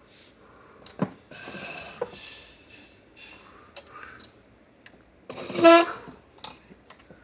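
Things being handled in an old machinist's toolbox: light knocks and shuffling, then a short, loud squeak about five and a half seconds in.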